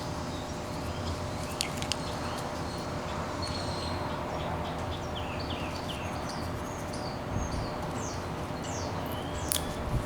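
Small birds chirping, many short quick calls repeated through most of the stretch, over a steady background hum and hiss, with a couple of faint clicks.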